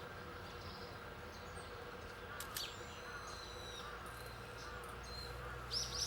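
Small songbird calls: a sharp high call about two and a half seconds in trailing into thin high notes, then a quick cluster of bright chirps near the end, over a faint steady background hum.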